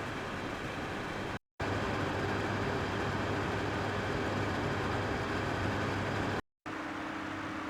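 Steady whirring noise with an underlying low hum, from three separate recordings played back to back with short silent gaps about a second and a half in and again near the end; the last one carries a steadier, higher hum.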